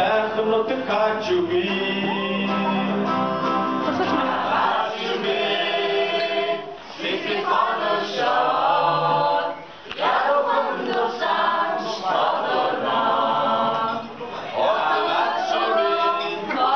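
A group of voices singing a song together with long held notes, in phrases broken by short pauses.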